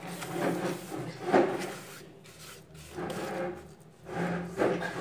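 Hands pressing and patting damp potting soil in a plastic plant pot: irregular scuffing and rubbing with a few sharper knocks, the loudest about a second and a half in and another near the end.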